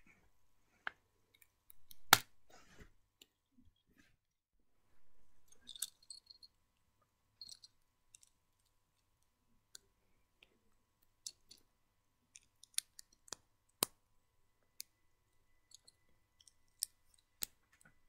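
Small plastic Lego bricks clicking as they are handled, pressed together and pulled apart, in scattered sharp clicks with one loud snap about two seconds in and a couple of short rattles of loose pieces being moved.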